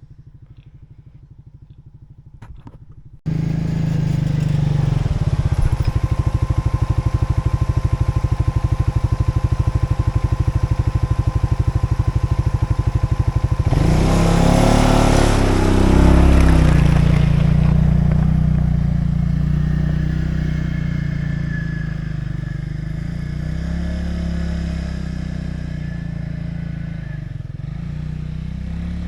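A small engine running loud with a fast, even beat. It comes in suddenly about three seconds in, after a faint low hum. It grows louder and rougher around fourteen seconds in, then eases back to a steady run.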